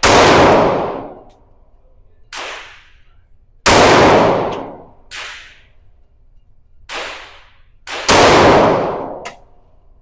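Gunshots at a shooting range: three loud shots about four seconds apart, each trailing off over about a second. Fainter shots fall in between them.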